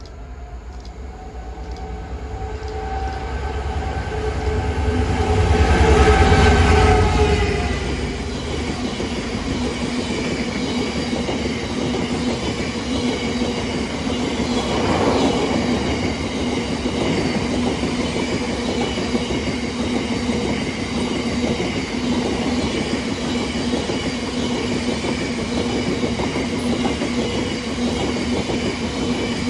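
A Class 66 diesel locomotive hauling a long train of Drax biomass hopper wagons passes close by. The engine's low rumble peaks about six seconds in, then the wagons' wheels roll past on the rails in a steady, loud run with a faint high whine.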